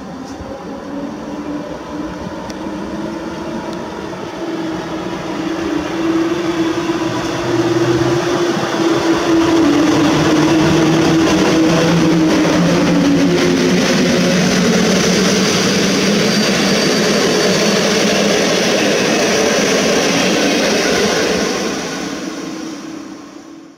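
PKP EP07 electric locomotive and its passenger coaches running through the station. The locomotive's hum and the rail noise build up and then stay loud, with the humming tone dropping in pitch as the locomotive goes by. The steady rumble and rattle of the coaches' wheels on the rails follows, fading away near the end.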